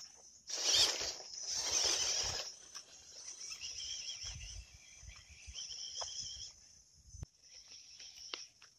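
Rustling through dry grass, loudest for about two seconds near the start, over a steady high-pitched insect chorus; everything cuts off abruptly about seven seconds in.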